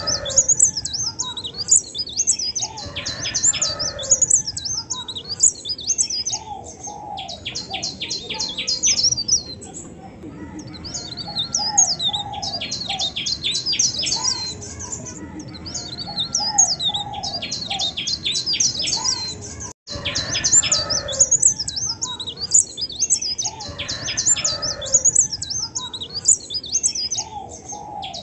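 Songbird singing a varied, melodious song: fast runs of high chirps and rattling trills mixed with lower whistled notes, with a brief break about two-thirds of the way through.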